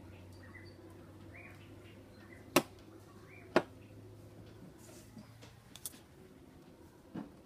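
Two sharp clicks about a second apart, with a few fainter clicks after them and faint short high chirps repeating about once a second before them.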